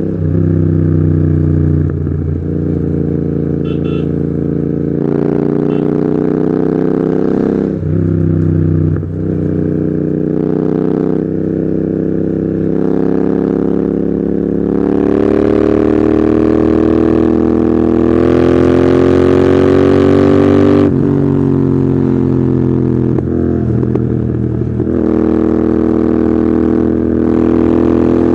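Royal Enfield Continental GT 650 parallel-twin engine running through Red Rooster aftermarket exhausts while being ridden. The revs rise and fall through a run of gear changes. A little past halfway the engine pulls steadily higher for several seconds, then drops sharply.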